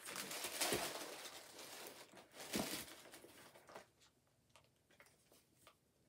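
White wrapping paper crinkling and a fabric shoe dust bag rustling as they are handled. The rustling is loudest in the first three seconds, then fades to faint, scattered soft rustles.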